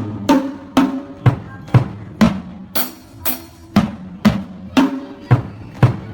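Drum kit played in a repeating chop pattern, sharp strokes about two a second that ring at different pitches across the drums. Two cymbal crashes come about halfway through.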